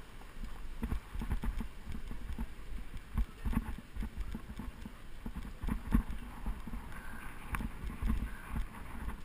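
Bicycle riding over a rough road surface: irregular knocks and rattles from the bike and its mounted camera over a steady low rumble.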